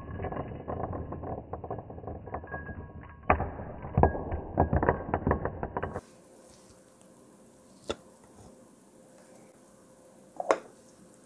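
Small stainless steel mesh parts-cleaning baskets clattering and clinking as they are set down on a mat: a run of metal knocks with brief ringing, loudest about halfway through. This stops abruptly at about 6 s, leaving a quiet room with two light clicks, one about two seconds later and one near the end.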